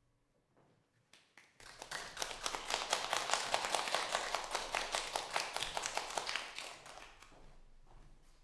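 Audience applauding the end of a piano performance: a few first claps about a second in, then steady clapping in which single claps stand out, tapering off over the last two seconds.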